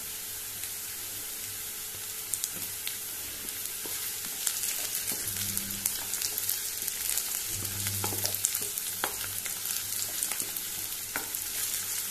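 Chopped onion, garlic and green chillies sizzling steadily in hot oil in a frying pan, with a wooden spatula stirring and scraping the pan; the taps and scrapes start a couple of seconds in.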